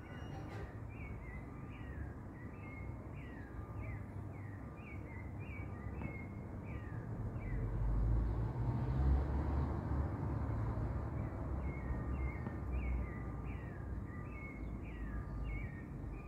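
An animal calling outdoors at night: a run of short chirps, each falling in pitch, about two a second, that stop for a few seconds around the middle and then start again. Beneath them is a low background rumble that swells around halfway through.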